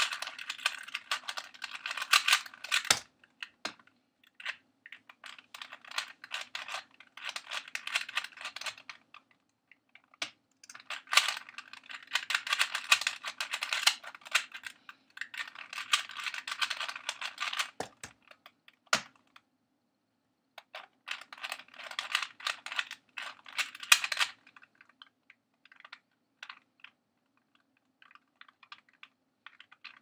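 2x2 speed cube's plastic pieces clicking and clacking as it is turned rapidly by hand, in dense bursts of a few seconds with short pauses and a few single sharp knocks between them. After about 24 seconds the turning thins out to sparse, faint clicks.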